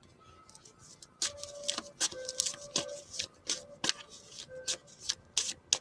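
A handmade deck of reading cards being shuffled by hand: after a quiet first second, a quick irregular run of crisp card snaps and rustles.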